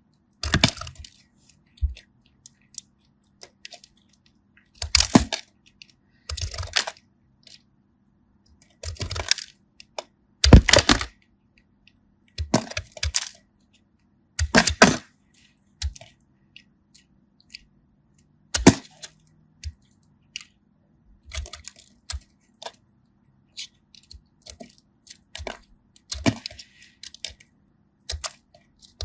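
Hardened kinetic sand clay being cracked and crumbled, in short crisp crunching bursts every second or two.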